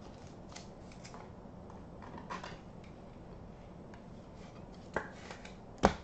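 Trading cards (2022 Topps Tier One) being slid and turned over in the hand: faint rustles and light ticks, with two sharper clicks near the end.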